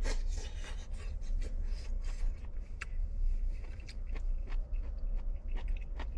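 Close-up eating sounds: chewing crunchy hazel mushroom stems, with irregular small crunches, clicks and scrapes throughout. A steady low rumble runs beneath.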